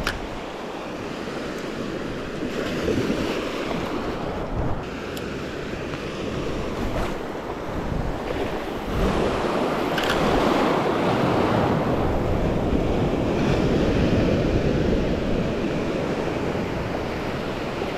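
Small waves washing and lapping in shallow bay water, with wind buffeting the microphone. A little louder from about halfway through.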